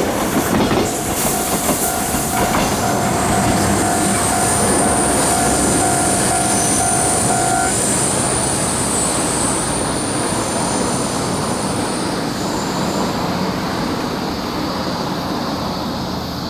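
Electric train running past with a steady rumble of wheels on rail. A high squeal and a steady whine carry through the first half and stop about halfway, and the train's sound eases a little near the end.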